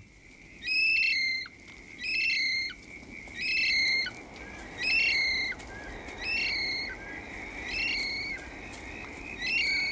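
Kiwi calling: a series of shrill whistled notes, each under a second long and dipping at the end, repeated about every 1.3 seconds. A steady high-pitched drone runs underneath.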